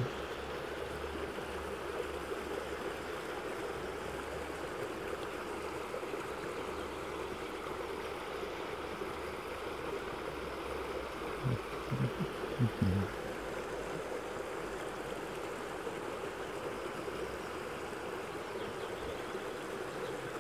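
Shallow stream running over stones, a steady babble of flowing water. A few soft low thumps come a little past the middle.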